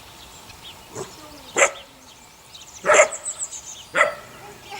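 Eight-week-old puppies yapping: four short, sharp barks, about a second apart, with a quick run of smaller yips after the third.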